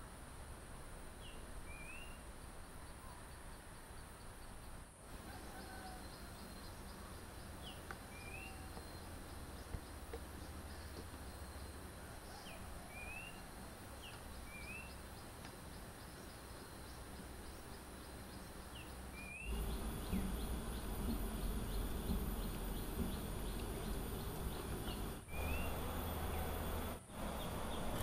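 Rural outdoor ambience: a steady high insect drone, with a bird repeating a short call every few seconds, a quick stroke followed by a rising upslur. About two-thirds of the way through, a louder low rumbling noise comes in, with two brief dropouts near the end.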